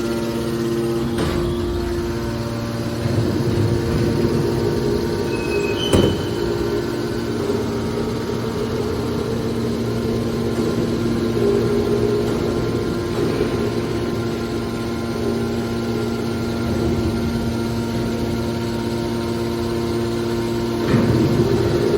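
Hydraulic metal horizontal baler running, its hydraulic power unit giving a steady hum. A single sharp metallic knock comes about six seconds in.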